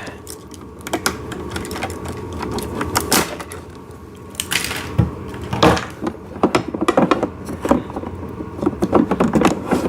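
Handling noise from work on a plastic ride-on toy tractor's rear axle: irregular clicks, knocks and rattles, coming thicker in the second half.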